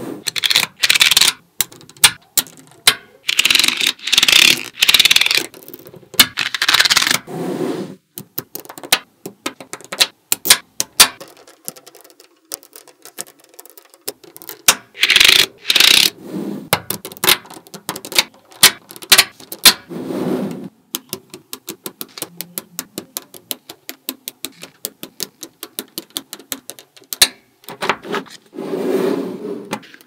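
Small magnetic balls clicking and clattering against each other as sheets of them are pressed, slid and snapped into place by hand, with rapid runs of sharp clicks broken by several longer rubbing, scraping stretches.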